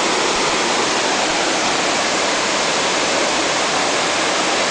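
Waterfall's falling water giving a loud, steady rush.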